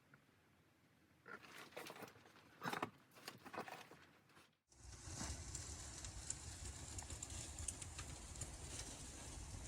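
A few irregular soft crunches and rustles, then after an abrupt cut about halfway through, steady snowstorm wind with a low rumble and a hiss.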